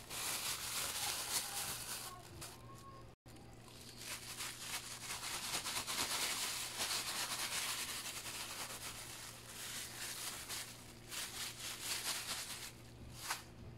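Clear plastic bag crinkling and rustling as chicken drumsticks are shaken and rubbed in flour inside it, cutting out briefly about three seconds in.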